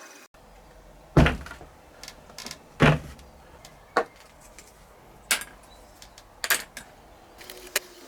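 A series of knocks: two heavy thumps, then four lighter, sharper knocks spaced a second or so apart.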